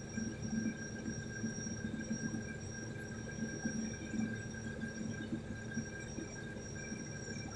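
Excavator diesel engine running steadily, a low rumble with thin high whines held over it.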